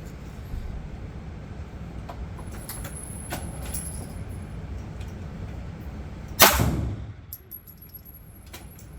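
A single 9mm pistol shot from a Canik TP9 Elite Subcompact, about six and a half seconds in, over a steady low rumble with a few fainter clicks earlier.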